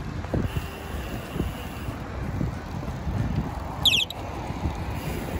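Wind buffeting the microphone over the low rumble of a bicycle rolling on pavement, with highway traffic in the background. A short high squeak comes about four seconds in.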